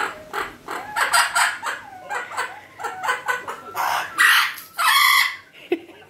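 Amazon parrot making a quick run of short clucking calls, several a second, then two louder, harsher squawks about four and five seconds in.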